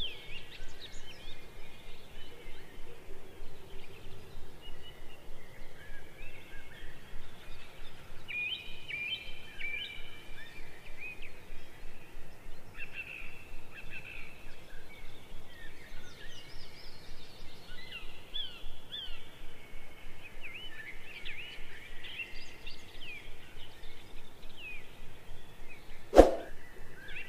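Many small songbirds chirping and trilling together over a faint steady hiss. One sharp knock sounds near the end.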